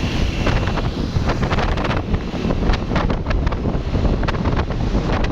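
Wind buffeting the microphone, a loud rumbling rush with crackling gusts, over traffic noise.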